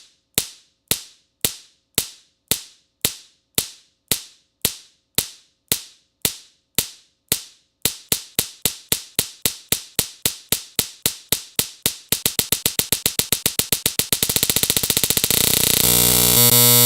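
One short, sharp snap sound looped in an edit, at first about two a second. The repeats double in speed about eight seconds in and again about twelve seconds in, then keep speeding up until they merge into a buzzing tone that steps in pitch near the end.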